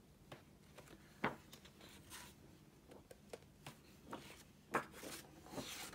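Pages of a large world atlas being flipped: a faint string of paper rustles and flicks, with two sharper page slaps, one about a second in and one near the end.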